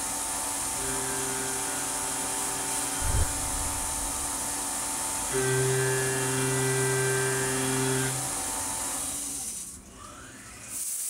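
Tormach CNC mill cutting a finishing pass with a 1/2-inch solid carbide end mill at 8000 RPM, under a steady hiss of spray. A humming spindle-and-cutting tone comes in twice for a few seconds as the tool works along the wall, with a low thump about three seconds in, and the sound falls away about ten seconds in when the cut stops.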